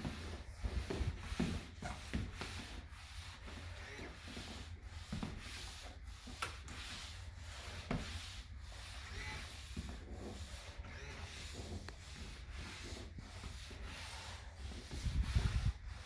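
Cloth wet-mop pad rubbing across a floor in back-and-forth strokes, about one a second. A louder low rumble comes near the end.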